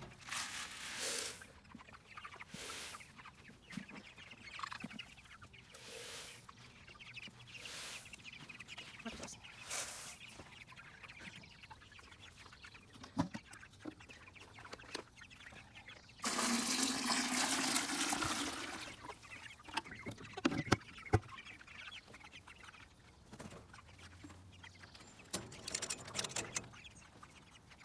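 Rustic Ranger meat chickens clucking, with short rustling swishes every couple of seconds. About sixteen seconds in comes about three seconds of loud rushing water with a faintly rising tone, as a waterer is filled, followed by a few sharp clicks.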